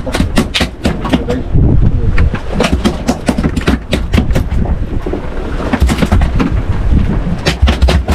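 Gusty low rumble over the microphone with a dense run of irregular sharp clicks and knocks.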